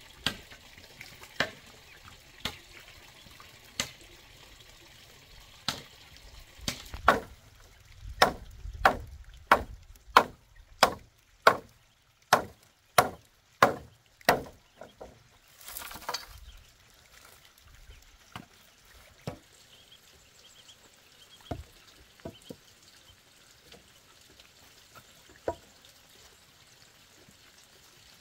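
A machete chopping into a bamboo pole: sharp strikes, a few scattered at first, then a quick steady run of about a dozen at roughly two a second, then occasional single strikes again.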